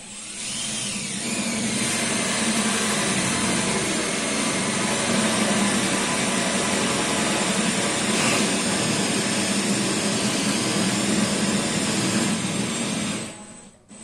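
Handheld electric drill with a 35 mm hinge-boring bit cutting a cup hole into 18 mm pressed-wood board, running steadily under hard downward pressure, then stopping briefly near the end.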